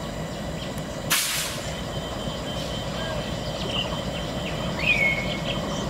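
Diesel locomotive approaching slowly, its engine running with a steady hum, with a short loud hiss about a second in.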